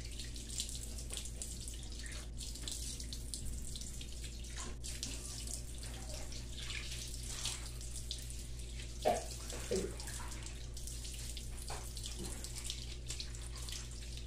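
Water splashing and running as soap is rinsed off a face and neck by hand over a sink, in many small uneven splashes. There is a steady low hum underneath and two brief louder sounds about two-thirds of the way through.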